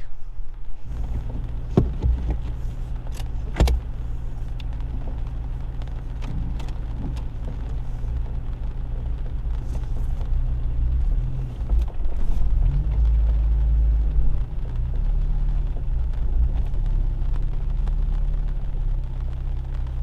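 Car engine running, heard from inside the cabin as the car is driven, with two sharp knocks in the first few seconds. The engine grows louder for a few seconds past the middle.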